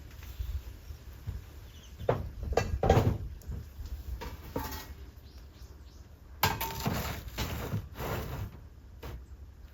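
A series of irregular knocks and clinks of hard objects being handled, with a busier clatter about two-thirds of the way through.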